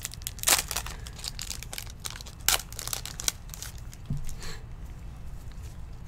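Foil trading-card pack wrapper crinkling and crackling as gloved hands crumple and work it open, in a run of short, sharp crackles. The loudest come about half a second and two and a half seconds in, and it goes quieter after about four and a half seconds.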